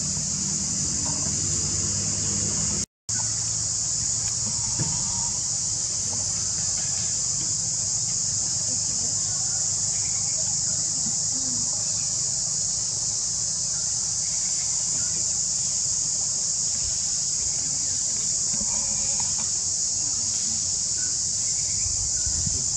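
Steady high-pitched insect chorus, with a low rumble beneath. The sound cuts out for a moment about three seconds in.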